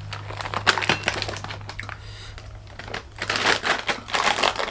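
Plastic snack packet crinkling and rustling as it is handled, in two spells: a short one near the start and a longer one about three seconds in.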